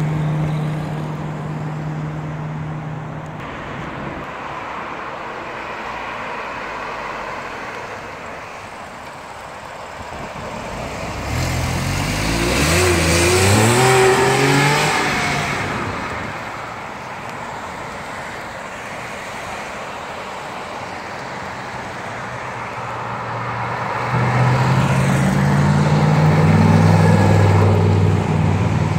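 Sports cars driving past one at a time. About halfway through, a Porsche 911's flat-six accelerates past, its pitch rising. Near the end, a vintage Chevrolet Corvette's deep engine rumbles louder as it approaches.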